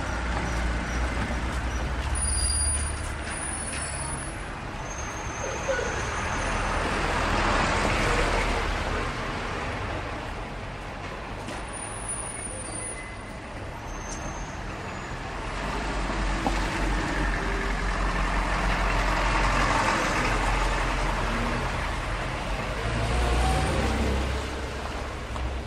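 Busy street traffic: a steady rumble of engines and tyres, with heavy vehicles passing in slow swells and short high squeals typical of brakes.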